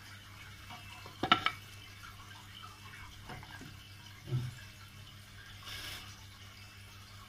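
Quiet handling noise: two sharp knocks close together about a second in, a soft thump a few seconds later and a brief rustle, over a low steady hum.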